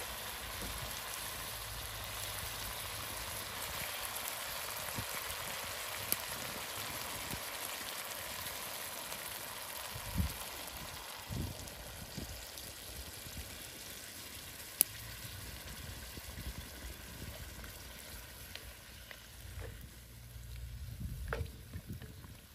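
Food sizzling in a cooking pot, an even hiss that weakens about halfway through, with a couple of sharp clicks.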